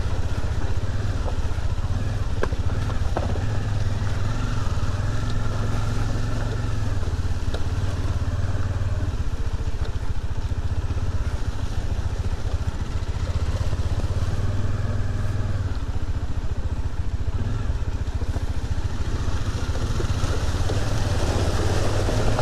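Motorcycle engine running steadily at cruising speed, a constant low drone with rushing wind noise, heard from the rider's camera while riding.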